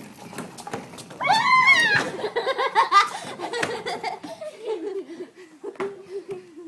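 A high voice squealing and laughing, then a wavering sing-song hum that settles lower in pitch, over scattered light taps.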